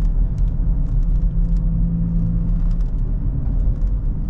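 Steady in-cabin road noise of a 2014 GMC Terrain under way, carrying the low groan of a bad wheel bearing, which the mechanic later places at the front.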